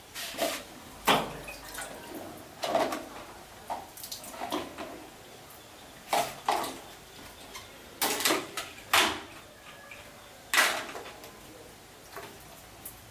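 Irregular knocks and clatters of objects being handled, about a dozen sharp strokes with short gaps between them.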